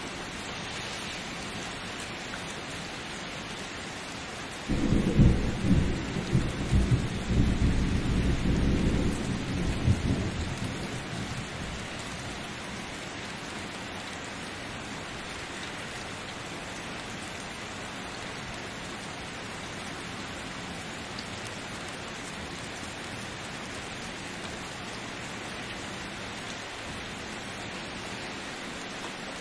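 Steady rain falling, with a roll of thunder that breaks in suddenly about five seconds in, rumbles deep for several seconds and fades away.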